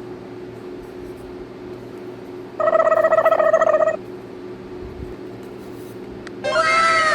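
Battery-powered toy gun playing its electronic sound effects through a small speaker: a buzzy, rattling tone for about a second and a half near the middle, then near the end a burst of several overlapping falling-pitch sweeps. A steady low hum runs underneath.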